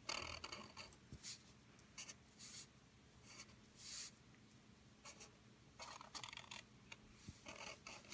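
Black felt-tip marker drawing lines on paper: a series of short, scratchy strokes, one per line, with brief pauses between them.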